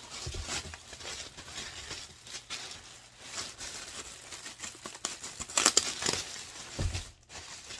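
A large shipping box being opened and its packaging handled: an irregular rustle of crackles, loudest a little past halfway, with a short low thump near the end.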